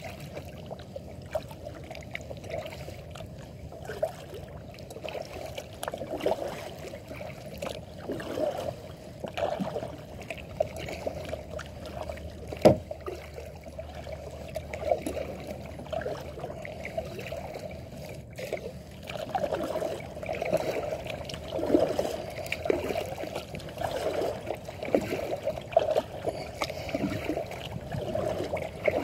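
Water dripping and lapping at a kayak's hull as it is paddled, in small irregular splashes that come more often in the second half. There is one sharp knock near the middle.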